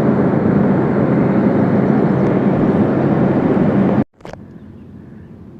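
Engine of a heavy logging processor running steadily and loud, with a low even hum. It cuts off abruptly about four seconds in, leaving only a faint background hum.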